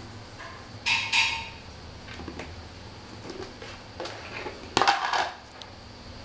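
Plastic lid of a cat-food bucket being worked loose by a cat, scraping and clicking about a second in. Just before five seconds in, the lid clatters down onto the tile floor, the loudest sound.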